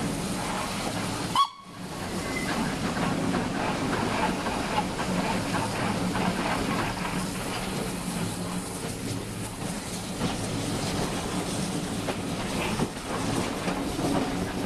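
LNER K4 2-6-0 steam locomotive working hard as it hauls its train up a climb, its exhaust heard over the clatter of carriage wheels on the rails. A sharp click with a momentary drop in sound comes about a second and a half in.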